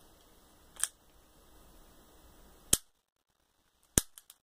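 Toy cap-gun revolver being dry-fired: the hammer snaps down in sharp single clicks, a faint one just under a second in, a louder one past the middle and another near the end. No caps go off; the owner says the cylinder, the part that holds the caps, doesn't work.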